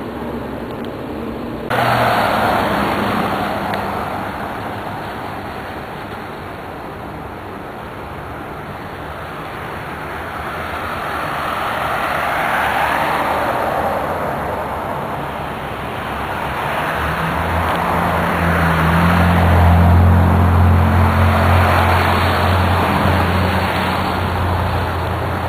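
Road traffic: steady tyre-and-engine noise that swells and fades slowly as vehicles pass, with a low engine hum building in the second half.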